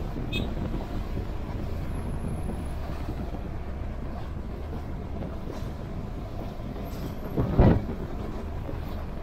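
Honda Integra motorcycle riding at motorway speed: a steady low rumble of engine and rushing wind, with one brief louder swell of rumble about three quarters of the way through.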